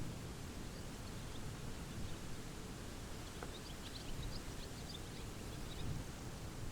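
Wind blowing over a buckwheat field with a low, gusty rumble. A small bird chirps in a quick run of short high notes from about halfway through.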